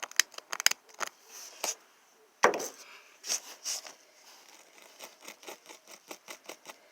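Quick small ticks and short scrapes of a pointed tool picking loose glass out of a windshield rock chip's impact pit, with one louder knock about two and a half seconds in.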